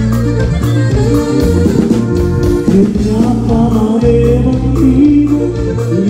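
Live norteño-style dance band playing loud and steady: saxophones and guitar over a bass line and drums, with a voice singing.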